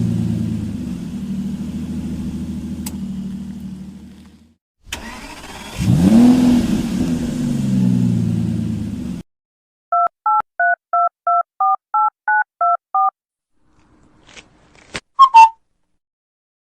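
Electronic toy playing recorded sound effects: a car engine running, then starting again and revving with a rising pitch, cut off suddenly. This is followed by about a dozen short telephone keypad beeps, two tones each, and then a few clicks and a brief tone.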